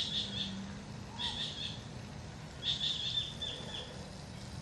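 A bird chirping in short high bursts, three times, the last a longer trill, over a faint low steady hum that fades early on.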